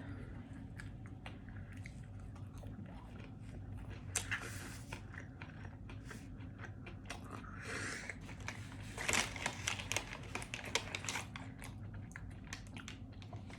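A person biting and chewing crispy chicken nuggets close to the microphone: soft wet mouth sounds with scattered crunches, and a denser run of crunching about nine seconds in.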